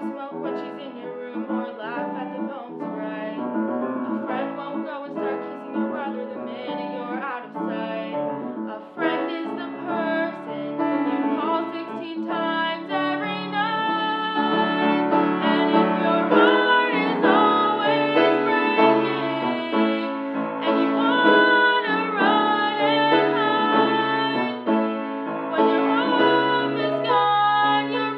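A young woman's solo voice singing a musical-theatre ballad with piano accompaniment, the singing growing louder about halfway through.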